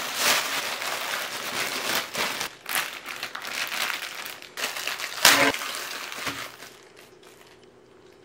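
Thin plastic bags and plastic wrap crinkling and rustling as they are handled, in irregular crackles. The loudest crackle comes about five seconds in, and the sound dies down near the end.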